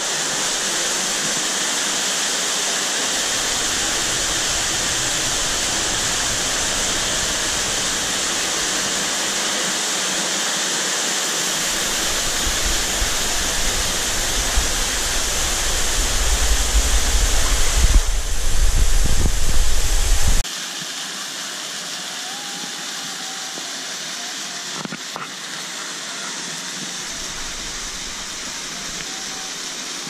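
Waterfall and falling water making a steady rushing hiss. A low rumble builds underneath through the middle and cuts off suddenly about two-thirds of the way in, after which the rushing is quieter.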